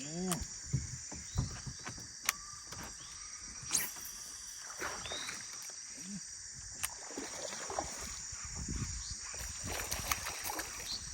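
Steady high-pitched chorus of insects, with scattered short knocks and clicks.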